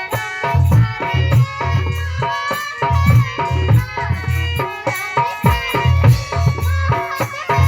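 Instrumental passage of an Indian-style song: a repeating low drum beat with tabla-like hand percussion under a melody.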